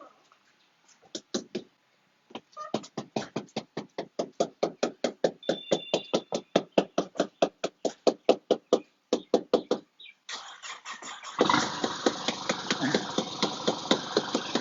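Rapid, even knocking at about four strokes a second, stopping briefly near the ten-second mark. A car engine then starts and keeps running, loud and steady, with the knocking going on beneath it.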